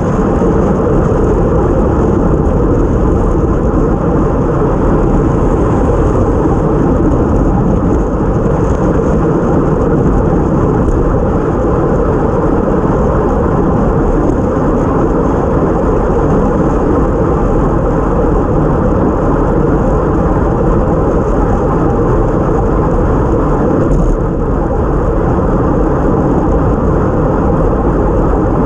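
Steady, loud wind rumble and road noise from a time-trial bike moving at racing speed, picked up by a camera mounted on the bike.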